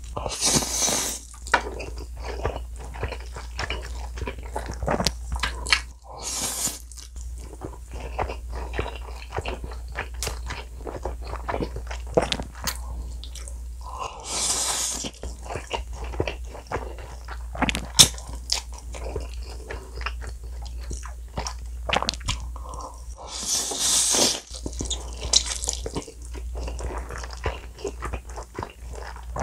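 Close-miked mouth sounds of eating black bean noodles (jajangmyeon): steady wet chewing and smacking, broken by several long, loud slurps of noodles.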